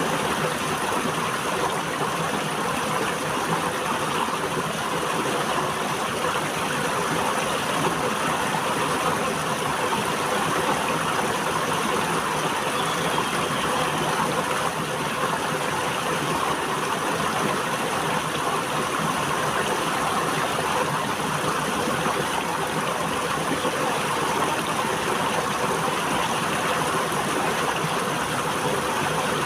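River water flowing and rushing steadily, an even, unbroken sound of moving water.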